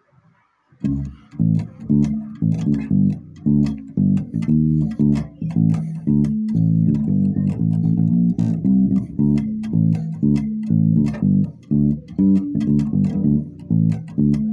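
Freeman electric bass guitar with humbucker pickups playing a cumbia bass line: quick, rhythmic plucked notes, starting about a second in.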